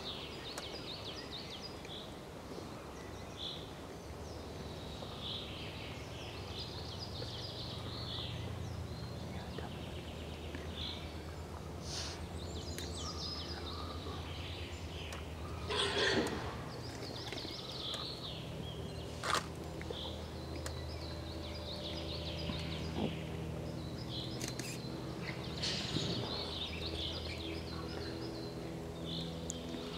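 Woodland songbirds chirping and singing over a steady low hum, with a few sharp clicks and one louder short rustling noise about sixteen seconds in.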